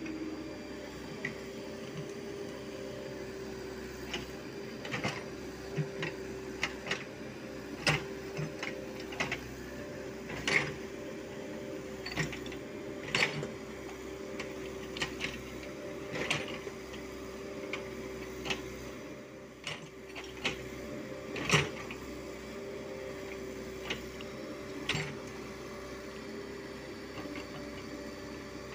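Komatsu PC75UU mini excavator's diesel engine and hydraulics running with a steady hum while it digs, broken by irregular sharp clanks and knocks from the bucket and arm working through dirt and stones.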